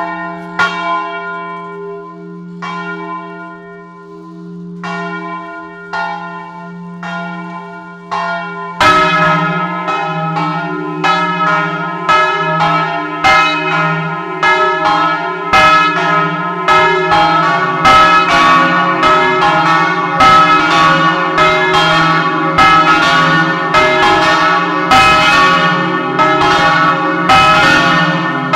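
Electrically swung church bells ringing a doppio peal, heard close inside the belfry. At first one bell strikes about once a second over a steady deep hum. About nine seconds in the other bells join, and their strokes overlap in a loud, dense peal.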